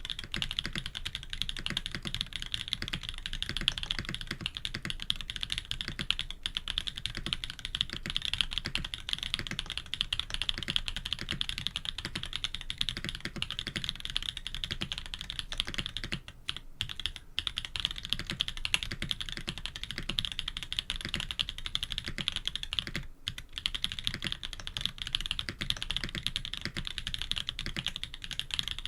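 Fast continuous typing on a K80 custom mechanical keyboard with Jade Black switches, FR4 plate and PBT keycaps: a dense run of key clacks, with two short pauses, about 16 s and 23 s in.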